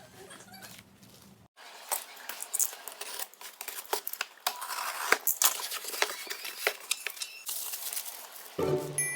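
Close-up handling sounds: quick irregular clicks and taps mixed with rustling, as objects and packaging are handled. Bell-like background music comes in near the end.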